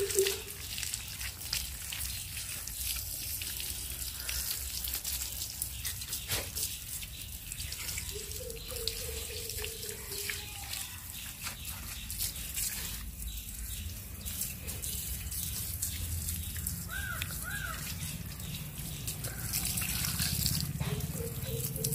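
Water from a garden hose spraying onto a dog's wet coat and splashing on the ground as shampoo is rinsed off, a steady hiss.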